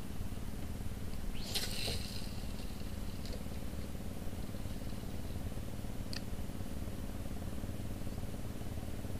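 Small boat engine idling steadily. About a second and a half in, fishing line whizzes off the reel as a bait is cast, and a single sharp click comes at about six seconds.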